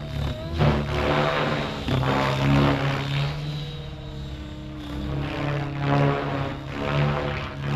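Align T-Rex 700X electric RC helicopter in flight with its rotor head at about 2000 rpm: a steady low rotor drone and motor whine that grows louder and softer as it manoeuvres.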